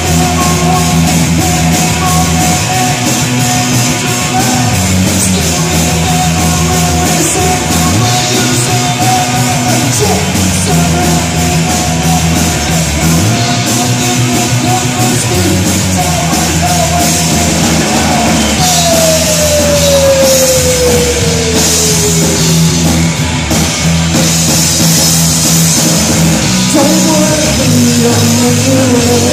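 Live rock band playing loud with electric guitars, bass guitar and drum kit, in a stretch without sung lyrics. A long falling note sweeps down about two-thirds of the way through.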